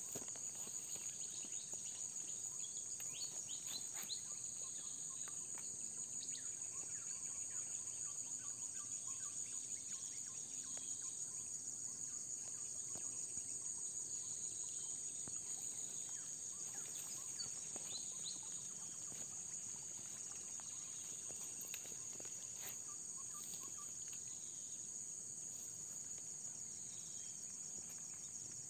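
Steady, high-pitched chorus of insects trilling without a break, with a few faint bird chirps and small clicks over it.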